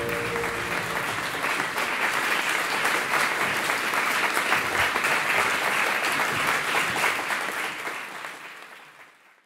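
Audience applauding, a dense even clapping that fades out near the end. The last held tones of the music die away in the first moment.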